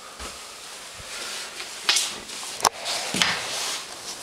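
Three sharp knocks or clicks over faint steady hiss, about two, two and a half and three seconds in, the middle one loudest.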